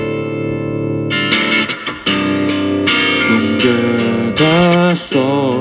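Electric guitar playing a slow song: a chord rings out, then fresh chords are struck a little over a second in. Near the end a wordless male voice holds a wavering note with vibrato over the guitar.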